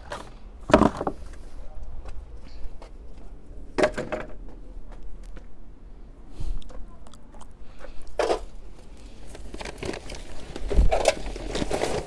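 Rustling and crunching of garden plant stems and leaves being pulled and handled by hand, in about four loud bursts a few seconds apart with small snaps and clicks between them.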